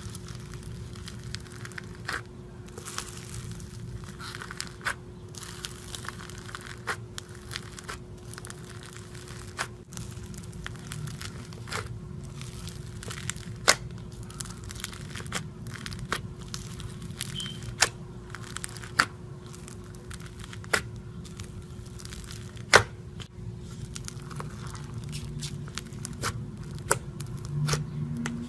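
Slime being handled, with crackling and many sharp, irregular pops and snaps over a steady low hum.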